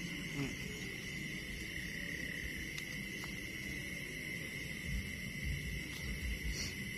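Steady high-pitched night chorus of insects and frogs, one unbroken tone-band throughout. From about five seconds in, low rumbling thumps break in irregularly.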